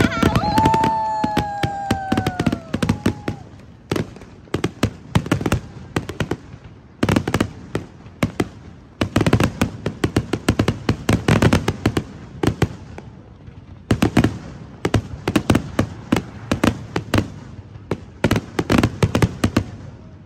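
Aerial fireworks going off in rapid clusters of sharp bangs and crackles, separated by short lulls. A falling tone sounds in the first couple of seconds.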